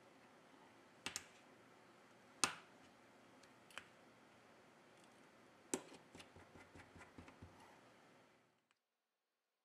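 Light clicks and taps of a metal tool on a smartphone's opened internals: three separate clicks, the second the loudest, then a quick run of small ticks, before the sound cuts out near the end.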